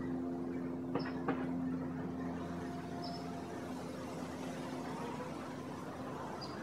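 A steady machine hum runs throughout. Two light clicks come about a second in, and a few faint, very short high chirps sound about three times.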